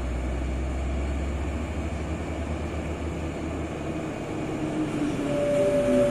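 Heavy diesel trucks coming closer, their engines running with a low rumble that grows louder. Near the end a steady higher tone comes in, with another tone sliding down beneath it.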